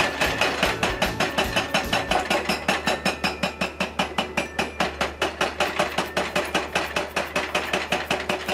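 Excavator-mounted hydraulic breaker hammering a concrete pile cap: a fast, steady run of metallic chisel blows, about five or six a second.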